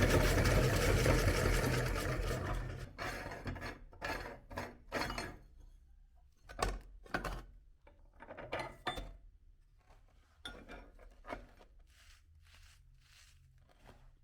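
Electric meat grinder motor running steadily, then switching off about two and a half seconds in. It is followed by a series of short scattered clinks and scrapes of handling, getting fainter toward the end.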